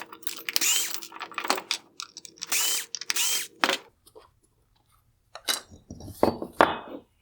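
A power screwdriver with a T10 Torx bit backs out small screws from the headlight's LED diffuser. The motor runs in several short spurts over the first four seconds, and a few clicks and knocks come near the end.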